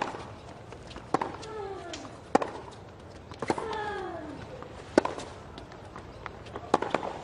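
Tennis rally on a hard court: racket-on-ball strikes and ball bounces about every second. Twice, a shot comes with a player's grunt that falls in pitch and lasts under a second.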